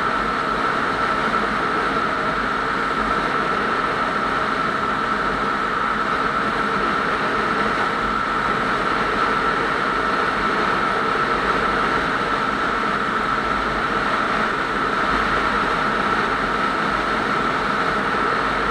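A vehicle cruising steadily on a paved highway: even road and engine noise with a steady high-pitched whine over it.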